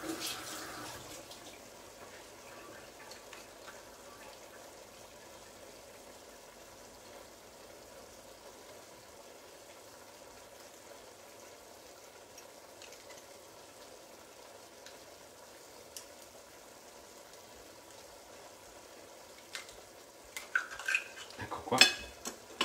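A pan of spaghetti sizzling quietly and steadily on the stove, a little louder for the first second. Near the end comes a run of sharp clicks and scrapes, a knife working on an oyster shell as it is prised open.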